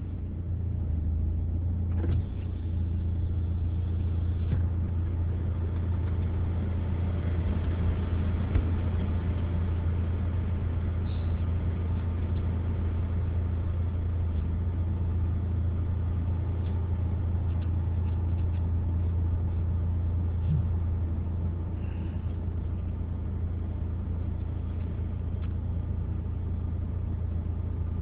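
Car engine running with a steady low drone, heard from inside the cabin, with a few faint clicks.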